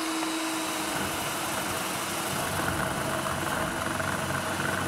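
Electric food processor running with its grating disc, shredding chunks of frozen tuna pushed down the feed tube. About a second in, the steady motor hum turns into a rougher grinding as the frozen fish meets the disc.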